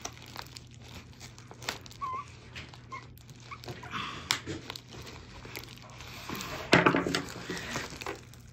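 Parcel packaging being wrestled open: crinkling and rustling with scattered clicks and tearing, loudest about seven seconds in, as the tightly wrapped package resists opening.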